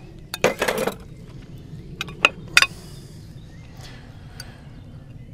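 Forks and spoons clinking and scraping against plates as food is served out: a short clatter about half a second in, then a few sharp clinks around two to two and a half seconds in.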